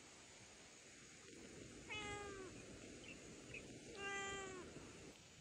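A domestic cat meowing twice, about two seconds apart, each meow short and dropping slightly in pitch at the end.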